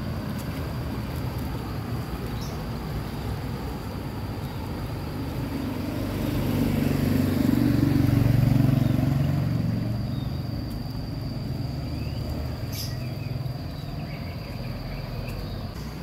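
Steady rushing of a fast, swollen river flowing through a stone culvert, with a motor vehicle on the road passing in the middle: its engine hum swells up and fades away.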